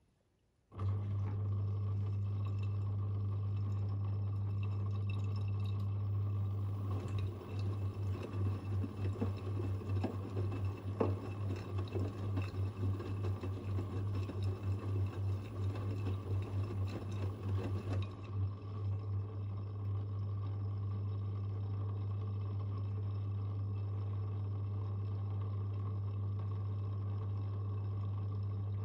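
Front-loading washing machine running with a steady low hum and water running through it. Between about 7 and 18 seconds the sound turns uneven and pulsing, then settles back to the steady hum.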